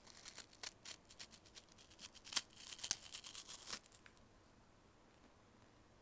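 Crunching of an Umaibo puffed corn stick being bitten and chewed right at the microphone for ASMR: a quick run of crisp crackles for about four seconds, then it stops.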